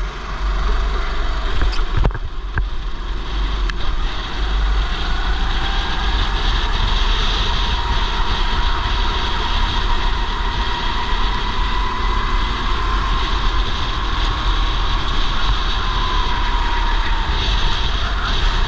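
Racing kart engine at full throttle heard from the driver's seat, with wind noise on the helmet-mounted microphone. Its whine climbs steadily in pitch through the middle, then falls back near the end as the kart slows for a corner.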